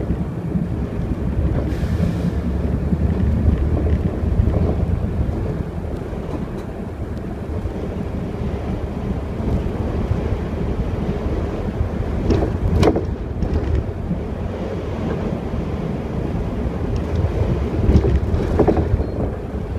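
Mercedes city bus running along a street, heard from inside the cabin: a steady low engine and road rumble, briefly louder twice, past the middle and near the end.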